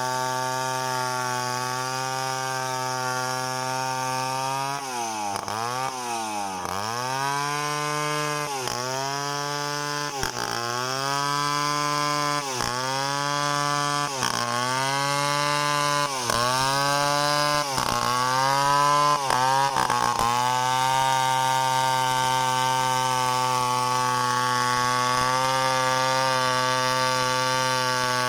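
Two-stroke chainsaw engine running at high revs. From about five seconds in until about twenty, its pitch dips and climbs back again and again, roughly once a second, the engine labouring as the chain bites into the wood. It then runs steady at high speed again.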